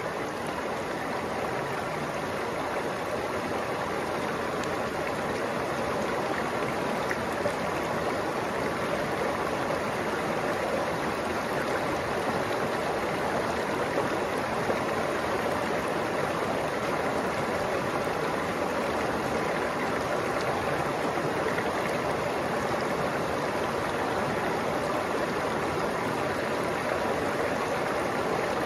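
Shallow mountain stream running over rocks and pebbles: a steady rushing and babbling of water.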